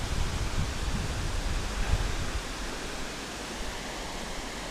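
Waterfall in the Chegem gorge: a steady rush of falling water, with an added low rumble for the first two seconds or so that then drops away.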